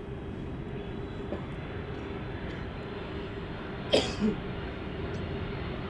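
Jet engines of an Airbus A330-300 airliner on final approach, heard as a steady distant rumble with a hum. About four seconds in there are two short sharp sounds close together.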